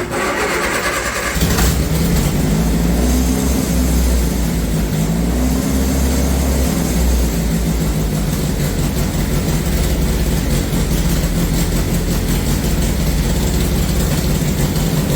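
Triumph Spitfire's 1500 four-cylinder engine is cranked by the starter for about a second and a half, then catches and runs. Its speed wavers for several seconds before it settles into a steady, noisy idle. The ignition timing is not yet set, and the owner calls the running "not great, but it'll do".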